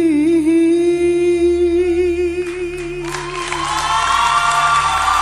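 A male singer holds a long, wavering note at the end of a sung line in Arabic. About three seconds in, the audience breaks into applause and cheering while the note fades.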